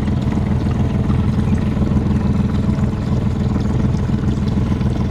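Boat engine running steadily, a continuous low hum with a rapid firing pulse.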